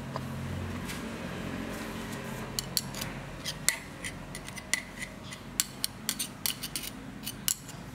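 Metal tools clicking and clinking, with about a dozen sharp, ringing ticks at uneven spacing from about two and a half seconds in. A low hum sounds during the first few seconds.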